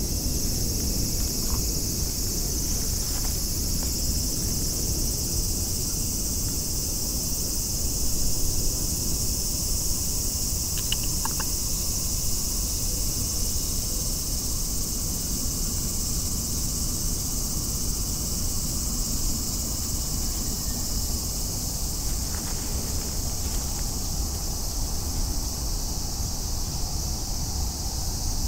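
A steady, high insect drone, typical of a summer cicada chorus, with a low rumble underneath.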